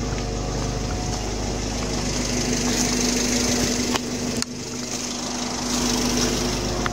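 Car engine idling steadily, heard close to the tailpipe. A higher steady hum joins about two and a half seconds in, and the level dips briefly about four and a half seconds in. The engine has an intermittent rich-running, shaking fault, but here it idles evenly.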